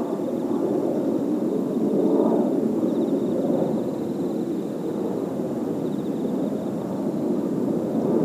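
Kawasaki T-4 jet trainers flying in formation: a steady jet rumble that swells and eases slightly, with a faint high whine above it.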